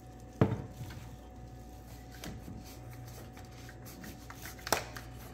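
Sharp plastic knocks and clicks from handling a motor oil jug and the engine's oil filler cap: one loud knock about half a second in, a faint click in the middle, and another sharp knock near the end, over a low steady hum.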